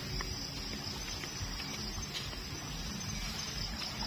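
Steady night ambience at a shallow rocky river: a low rush of moving water under a continuous high drone, with a few faint clicks.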